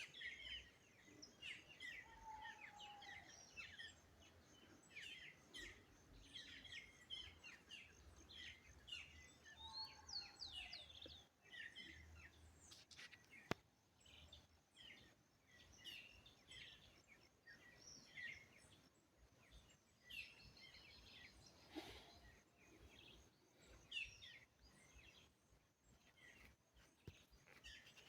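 Several wild birds chirping and singing faintly, many short varied calls overlapping one another, with a single sharp click about thirteen seconds in.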